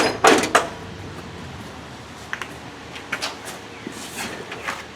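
Handling noise during a lawn-tractor oil change: a quick clatter of knocks at the start, then a few scattered light clicks.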